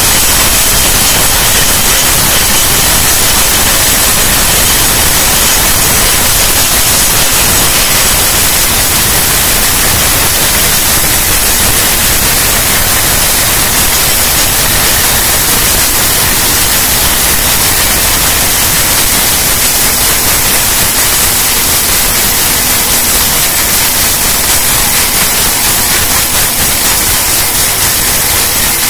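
Electric mixer grinder's motor running with its steel jar fitted, giving a loud, steady whirring noise.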